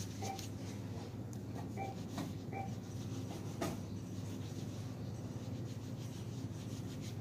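Handling noise: fabric and hands rubbing against the phone's microphone, with one sharp click about three and a half seconds in, over a steady low hum.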